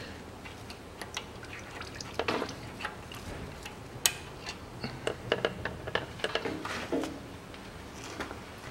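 Automatic transmission fluid dripping from the fill/level hole of the Aisin 09D gearbox pan as it overflows the level tube, a sign the tube has filled, with scattered clicks and knocks as a gloved hand pulls the filler hose out, most of them between about two and seven seconds in.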